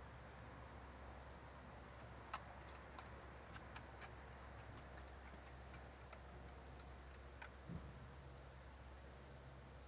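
Near silence over a low steady hum, with faint scattered light ticks and clicks through the middle and a soft low thump near the end.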